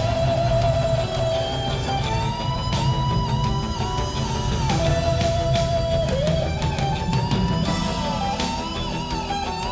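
Instrumental rock music: an electric guitar plays a lead melody with bent notes over drums.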